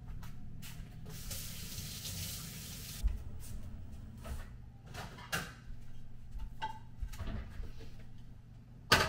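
Kitchen handling sounds: a brief hiss about a second in, then scattered knocks and clicks of a cabinet door, dishes and a drawer microwave being opened, with the sharpest knock near the end, over a steady low hum.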